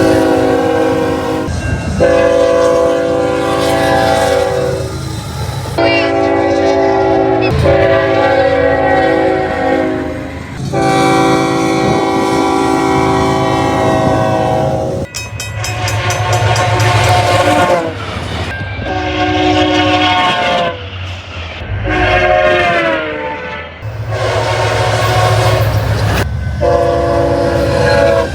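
Train air horns sounding a series of long blasts, several notes together in a chord. Some blasts drop in pitch as the train goes by, and the low rumble of the trains runs underneath.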